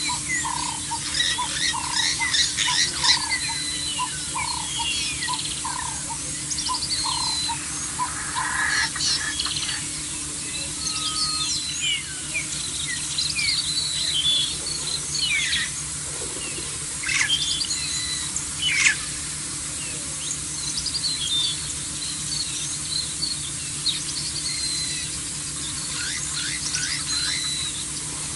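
Wild birds chirping and whistling in a busy mixed chorus, with a lower note repeated steadily for about the first eight seconds. A faint steady low hum runs underneath.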